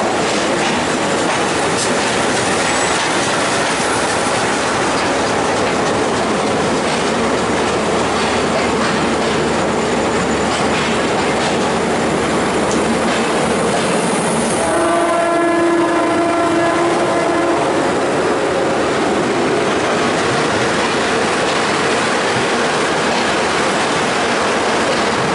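Express passenger train running through a station at speed, heard from on board: steady rumble and wheel-on-rail noise. About midway a train horn sounds for about three seconds.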